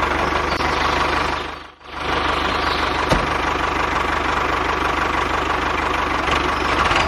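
RC tractor's engine sound running steadily at idle with a fast knocking rhythm, dipping away briefly just under two seconds in.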